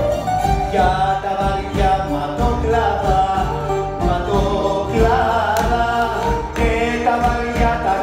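A song performed live on stage: a singer's voice with band accompaniment, in the style of a Greek popular song.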